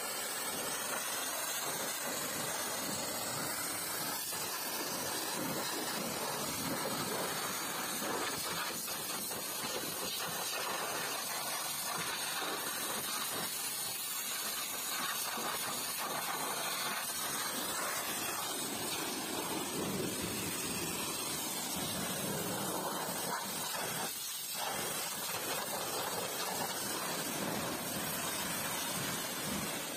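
High-pressure washer spray hissing steadily against a car's body, glass and wheel. The spray breaks off briefly about three-quarters of the way through.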